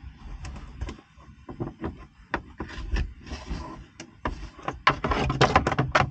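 Handling noises and scattered light knocks as battery cables are tucked along the inside of a boat's hull, with a quick run of clicks near the end as a nylon cable tie is pulled tight through its ratchet.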